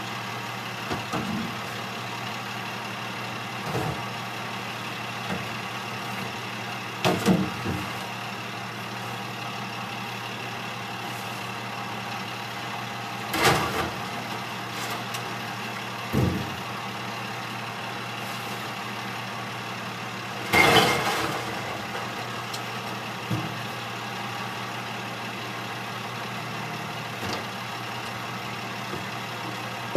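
Recycling truck's engine idling steadily while a collector empties blue recycling bins into its side-loading hopper by hand. Several loud clatters and bangs of bins and recyclables come over the idle, the biggest about 7, 13 and 21 seconds in.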